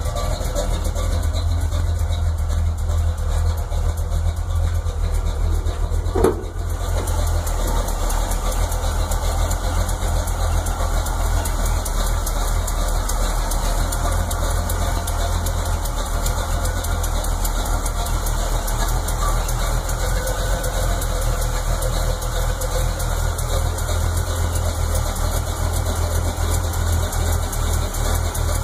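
1963 Chevrolet C10 pickup's engine idling steadily, a low even rumble, with a single short thump about six seconds in.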